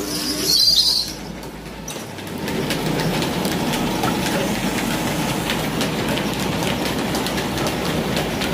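Belt-driven chakki flour mill and its 10 hp electric motor starting on a test run after the motor's repair and bearing change. It builds up about two seconds in, then runs steadily with a rattling clatter.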